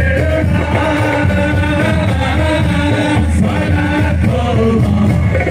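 Male voice singing a sholawat, an Islamic devotional song, over musical accompaniment, loud and continuous.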